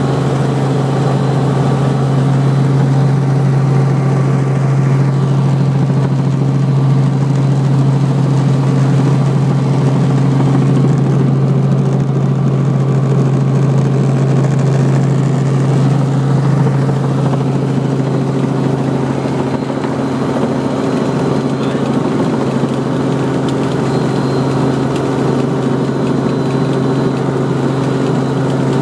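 Helicopter engine and rotor running steadily, heard from inside the cabin: a loud, even drone with a strong low hum and higher overtones.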